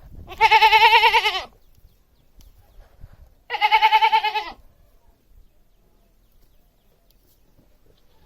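Domestic goat bleating twice: two loud, quavering calls of about a second each, about three seconds apart.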